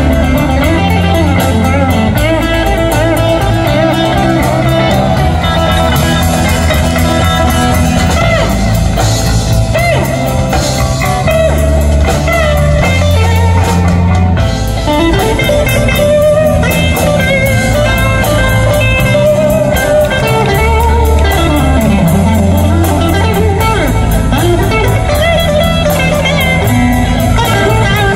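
Live band playing: an electric guitar solo with bent, gliding notes over electric bass and a drum kit keeping a steady beat.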